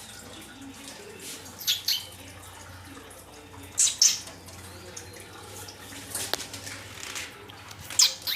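A parrot making short, sharp noisy bursts, mostly in quick pairs, with a single click in between, over a faint steady hum.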